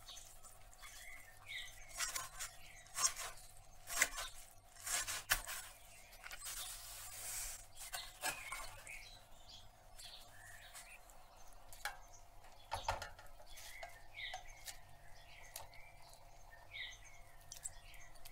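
Wet shredded cabbage squeezed by hand and chopped with a chef's knife on a plastic cutting board: scattered knocks and squelches, loudest a few seconds in. Faint bird chirps come and go in the background.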